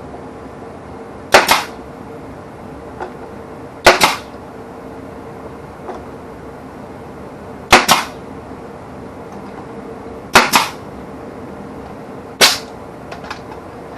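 Pneumatic brad nailer driving brad nails into wood, five shots a few seconds apart. Each shot is a sharp crack followed at once by a short second burst.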